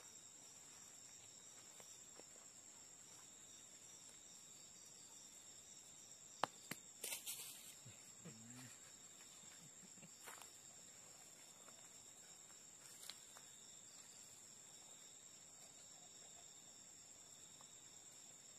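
Crickets trilling steadily at a high pitch, with a few faint clicks and a brief rustle about seven seconds in.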